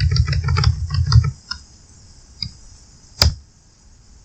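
Fast run of clicks from a computer's keys or mouse, stepping through photos in an image viewer, stopping about a second and a half in; then a few single clicks, the loudest about three seconds in.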